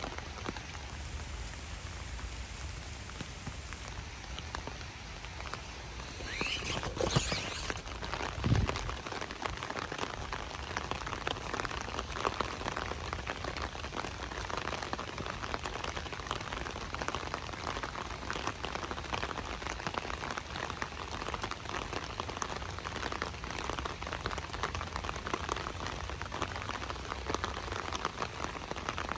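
Light rain falling: a steady hiss with a dense patter of drops on surfaces. About seven seconds in there is a brief louder noise that rises in pitch, and a short low thump follows a moment later.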